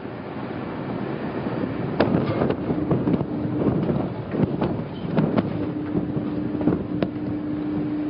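Underwater demolition charges on bridge foundations going off as a string of sharp cracks, about ten of them at uneven intervals starting about two seconds in, over a steady rumble with a low hum.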